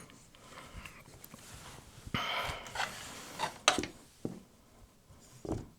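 Clicks, knocks and a short scraping rustle of hands handling and taking apart the plastic internals of an opened DVD/VCR combo player.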